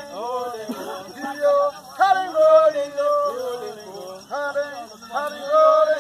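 Men singing a chanted song, in short phrases of held notes.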